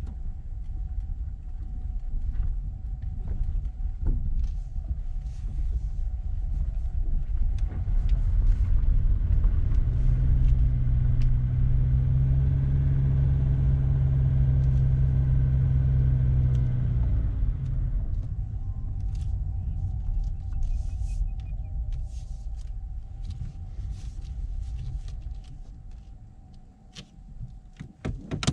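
Honda Fit e:HEV hybrid car cruising at a steady speed: a constant low road and tyre rumble. About a third of the way in, a louder steady hum joins it, holds for roughly ten seconds, then dies away.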